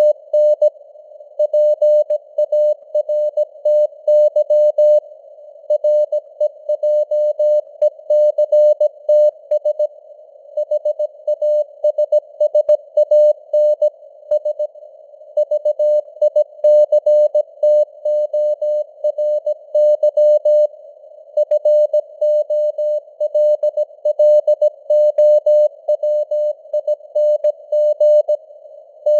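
Morse code at 17 words per minute: a single mid-pitched beep keyed on and off in dots and dashes, grouped into letters and words with short pauses between them. Simulated radio hiss surrounds the tone.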